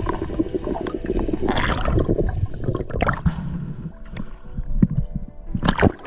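Seawater sloshing, gurgling and splashing around an action camera as it moves at and just below the surface, with sharper splashes about a second and a half in, at about three seconds, and near the end.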